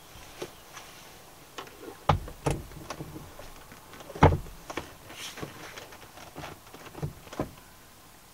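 Scattered knocks and clunks of the Zafira's rear middle seat and its plastic and metal parts being handled and fitted into the car, with heavier thumps about two and four seconds in.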